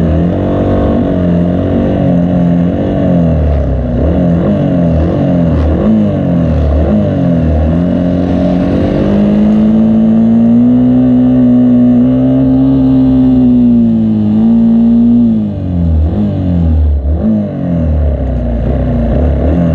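Racing vehicle engine revving in a string of short rising pulls, then holding a steady high speed for about five seconds before the pitch drops and it revs up and down again near the end.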